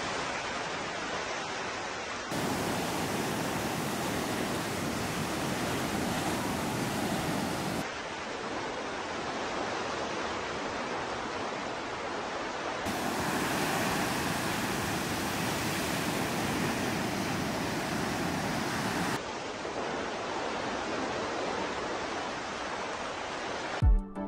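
Steady rush of waves washing on a rocky shore, in several spliced clips whose hiss changes at each cut. A brief sudden thump near the end.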